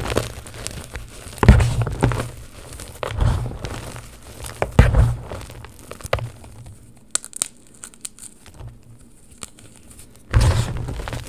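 Hands squeezing and crushing Friction Labs Super Chunky gym chalk in a plastic tub: soft, crunchy squeezes in bursts roughly every one and a half seconds, then a quieter spell of faint crackles before one more burst near the end.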